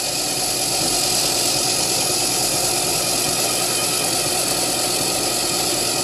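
Drill press running steadily with a Tapmatic tapping head spinning in the chuck, the tap turning freely and not yet fed into the titanium: an even hum with a high hiss.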